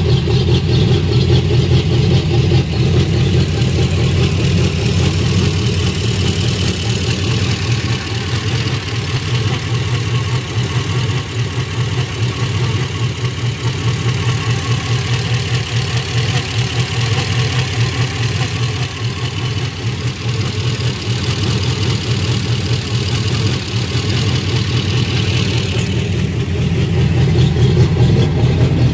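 Freshly rebuilt V8 engine in a Chevrolet S-10 pickup idling steadily on its first run after the rebuild.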